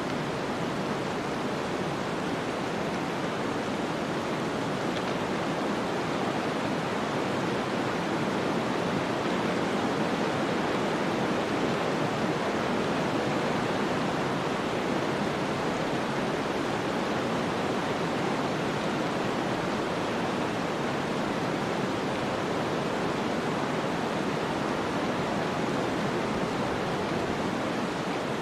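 Snowstorm wind: a steady, even whooshing noise that swells a little about ten seconds in and then eases back.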